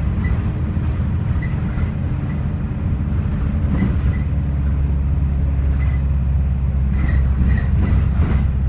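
Ataman city bus heard from inside the cabin: steady low engine drone, with a few short rattles and knocks of the bodywork about four seconds in and again near the end.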